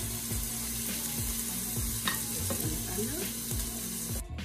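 Salmon fillet sizzling steadily in hot olive oil in a nonstick frying pan, just laid in seasoned side down. A single click from the tongs comes about two seconds in, and the sizzle cuts off suddenly near the end.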